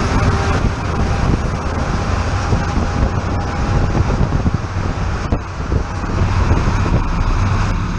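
Steady highway road noise at speed: tyres on asphalt and wind buffeting the microphone, with a Scania S500 tractor-trailer running alongside.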